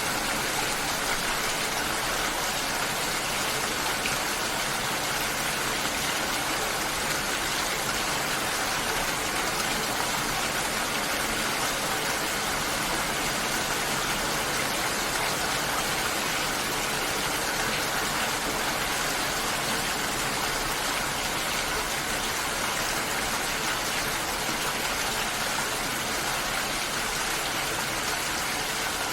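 Steady heavy rain, an even unbroken hiss of falling water with no change in strength.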